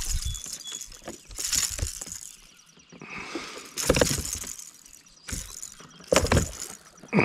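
A freshly landed smallmouth bass thrashing on a plastic kayak deck: a few irregular knocks and rattles, the loudest about four seconds in and again about six seconds in.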